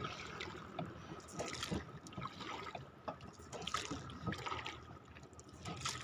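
Water splashing and lapping irregularly around a small wooden rowboat out on a lake.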